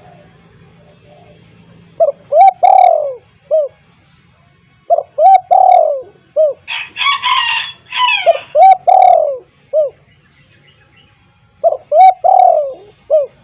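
Spotted dove calling loudly: four cooing phrases about three seconds apart, each a few short notes around one long falling coo and a short closing note. Between the second and third phrase there is a brief burst of higher chirping.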